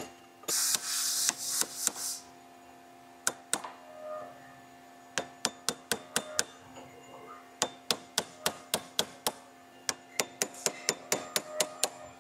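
Hammer striking a steel chisel set against the carbon-fiber wrap of a rifle barrel, chiselling into the carbon to test its bond to the steel liner beneath. Sharp metallic strikes come singly at first, then in quick runs of several a second, with a scratchy scraping noise in the first couple of seconds.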